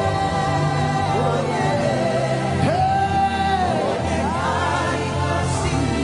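Live gospel worship music: a band holding sustained chords while a voice sings long, bending notes, with one long held note in the middle, in a slow Igbo worship song.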